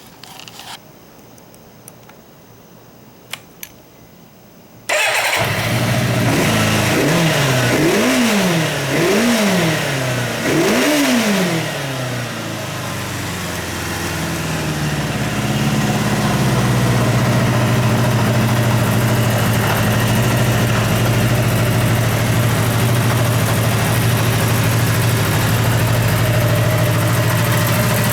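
Kawasaki Zephyr 550's air-cooled inline-four starts up about five seconds in. It is blipped three times in quick succession, then settles into a steady idle.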